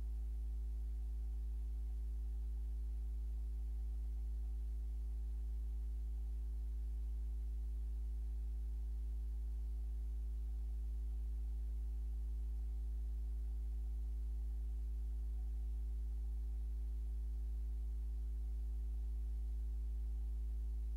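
Steady low electrical hum with a few faint constant tones above it, unchanging throughout.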